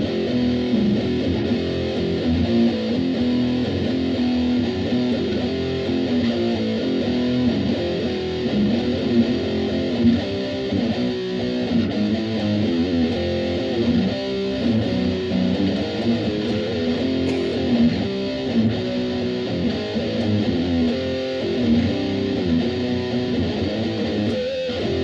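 Dean electric guitar strung with Ernie Ball Cobalt 10–52 gauge strings, playing a blues tune with picked single notes and chords.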